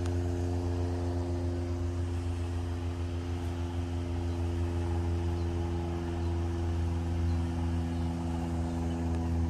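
A motor running steadily, a low hum holding one pitch.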